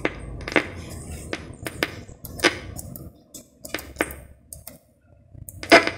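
Bosch Los Angeles IV car radio-cassette putting out scratchy clicks and crackles over a low hum as its balance control is turned, a noise that comes with moving the balance. About halfway through, the sound drops out for roughly two seconds, and one output channel is thought to be burnt out.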